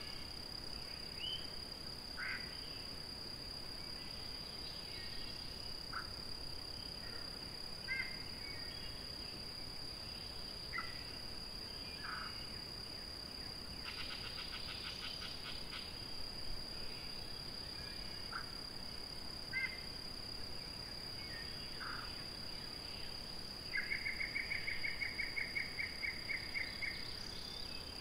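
Night-time outdoor field recording: a steady high-pitched drone throughout, with scattered short calls every few seconds. A rapid pulsed trill comes about halfway through, and a louder one of about four pulses a second comes near the end; it is the loudest sound.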